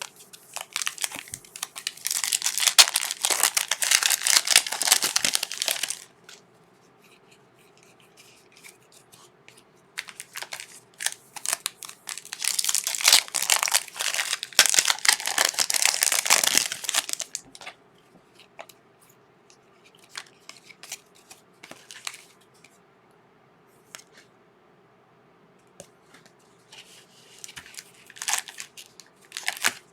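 Trading-card pack wrappers being torn open and crinkled by hand: two long spells of tearing and crackling, then a shorter one near the end, with quiet handling in between.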